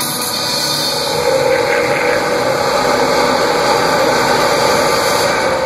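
Loud, steady wash of arena sound during a concert's opening intro: a noisy rumble over the PA mixed with the crowd, with faint sustained tones running through it. It swells slightly about a second in.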